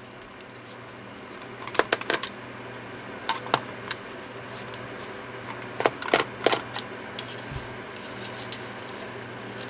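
Clicks, knocks and scrapes of a plastic cordless-phone charging cradle being handled and worked open, in clusters of sharp clicks about two, three and a half and six seconds in, over a low steady hum.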